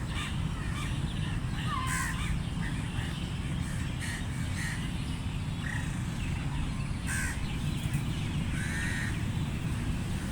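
Crows cawing: short caws scattered through, with a pair about two seconds in and more around seven and nine seconds, over a steady low rumble.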